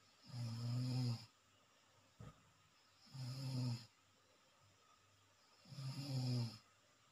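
Someone in deep sleep snoring: three low, pitched snores about two and a half seconds apart, each lasting about a second. There is a faint click about two seconds in.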